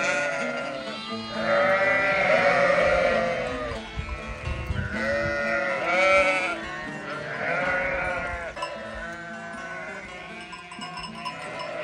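A flock of sheep bleating: repeated long, wavering bleats that overlap, loudest in the first half and fainter toward the end. Soft background music plays underneath.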